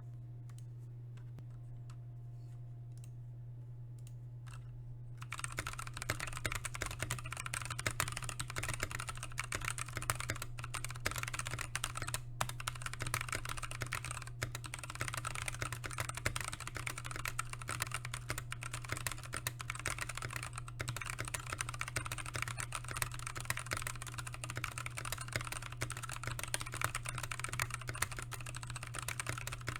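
Keychron K6 mechanical keyboard with NK Blueberry switches and PBT keycaps being typed on. A few scattered key presses come first, then fast continuous typing starts about five seconds in, over a steady low hum.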